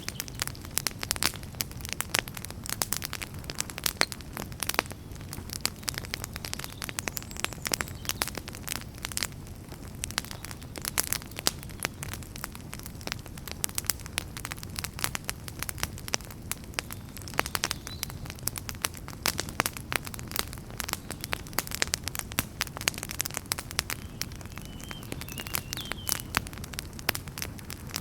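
Outdoor wood campfire crackling and popping in quick, irregular snaps, over a low steady rumble. A faint distant bird call about three-quarters of the way through.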